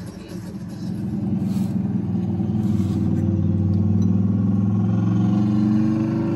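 Car engine accelerating, its pitch rising slowly and steadily as it pulls, getting louder about a second in.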